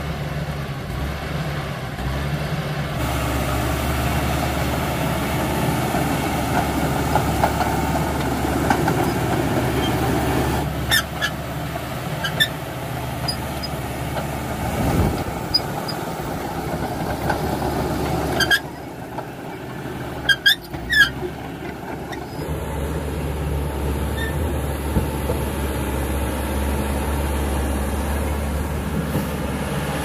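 CAT D5K XL crawler dozer's diesel engine running steadily under load as the blade pushes loose soil. Short sharp metallic squeaks and clanks from the tracks and undercarriage come in a few clusters, the loudest a little past the middle, where the engine briefly eases.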